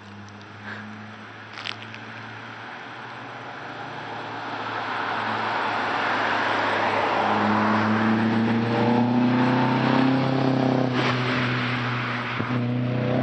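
2008 Mitsubishi Lancer GTS's four-cylinder engine, fitted with a Tsudo S2 catback exhaust, test pipe and intake, accelerating hard along the road. The exhaust note swells over several seconds and climbs slightly in pitch, then dips briefly near the end before picking up again.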